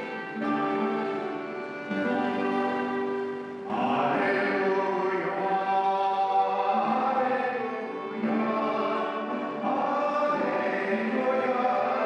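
Church music: a violin plays sustained notes, and about four seconds in a singing voice comes in above it, in long phrases with a couple of short breaks.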